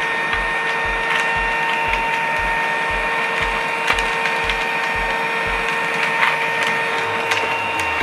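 Battery-powered toy children's vacuum cleaner running: a steady high motor whine with many small clicks as the coloured beads tumble and rattle inside its clear dust chamber.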